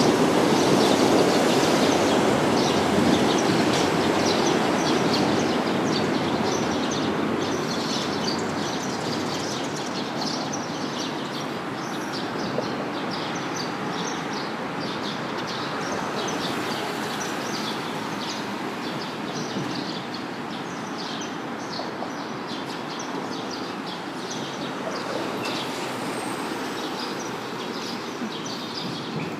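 Rumble of a passing vehicle slowly fading away, with many short high chirps of small birds throughout.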